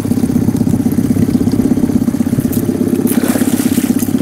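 Boat motor idling steadily with a fast, even pulse. In the second half come a few short splashes from a hooked pike thrashing at the surface beside the boat.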